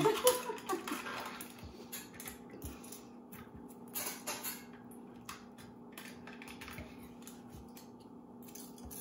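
A jar of Nutella being opened and spooned out: scattered small clicks and scrapes of the lid and a spoon, after a woman's laugh at the very start.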